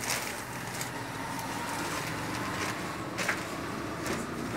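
Plastic courier mailer and clear plastic bag rustling and crinkling as they are handled and pulled apart, with a sharper crinkle about three seconds in.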